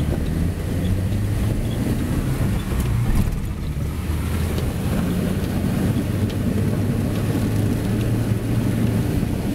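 Car engine running, heard from inside the cabin in heavy rain: a steady low rumble with a few light ticks.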